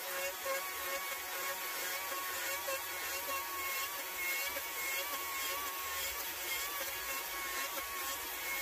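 Battery-powered chainsaw running and cutting into cedar: a steady motor whine, its pitch wavering slightly under load, over the hiss of the chain.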